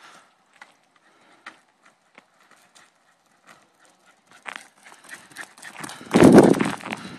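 A small dog's paws and claws tapping on an asphalt court as it pushes a football along: scattered light clicks that grow busier about four and a half seconds in. A much louder rumbling noise covers them for under a second near the end.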